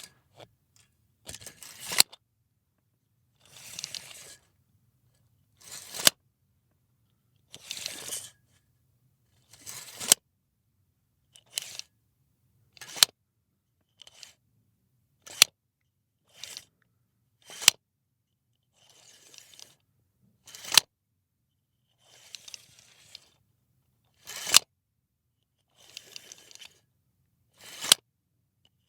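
Metal tape measure, its blade drawn out and let back in over and over. Each pass is a short rattle ending in a sharp snap, about a dozen times, roughly every two seconds.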